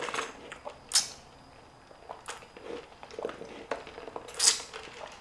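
Drinking through a straw: several short, irregular sips and swallows, with a sharp one about a second in and another near the end.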